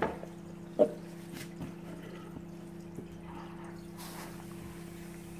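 Rubber gas mask facepiece being pulled on over the head and settled on the face, with a short muffled vocal grunt about a second in and a brief hiss near four seconds in, over a steady low hum.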